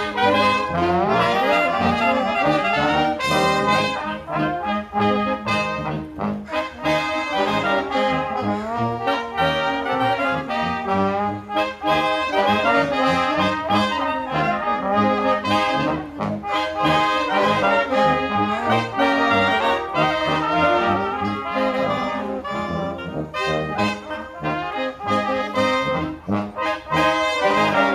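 Old-time band playing a lively tune led by brass horns, with a steady beat and quickly changing notes.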